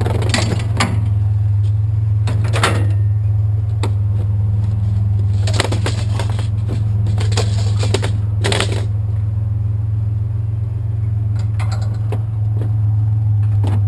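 Truck engine idling with a steady low hum, while metal and junk clank and knock now and then, sharpest near the start and about three, six and eight and a half seconds in.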